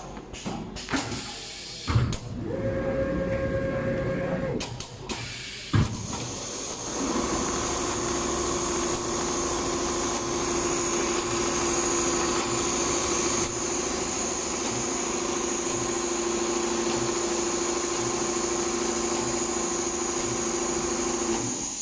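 Multihead computerized leather sewing machine stitching car-upholstery leather: a few clicks and knocks and a brief hum in the first five seconds, then a steady whining hum of the running heads from about seven seconds in.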